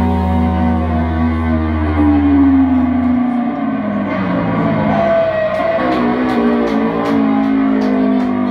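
Live band music with electric guitar: a held chord over a low note that stops about three seconds in, then guitar notes sliding in pitch with a few light taps behind them.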